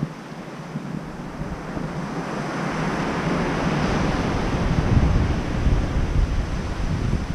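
Ocean surf breaking and washing up the beach, swelling to a peak about halfway through, with gusts of wind buffeting the microphone that grow stronger toward the end.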